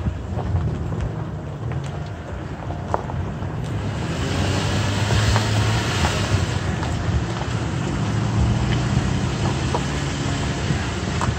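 Toyota Tacoma pickup's engine running at low trail speed, heard from inside the cab, with a steady drone, occasional knocks and a rushing noise that grows louder about four seconds in.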